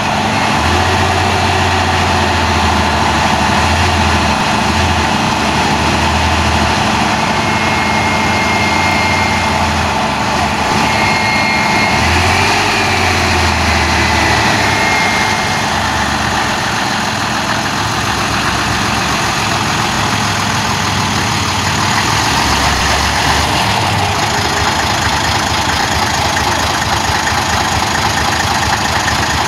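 Heavy diesel engine of a 1962 Magirus-Deutz hose-laying fire truck running steadily at low speed as the truck creeps forward.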